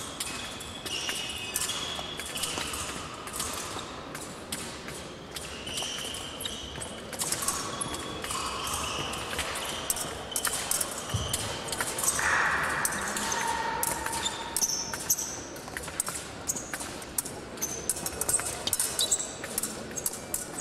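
Épée fencing bout: sharp clicks and knocks of steel blades clashing and fencers' feet stamping on the piste, with short electronic beeps at several pitches sounding over them.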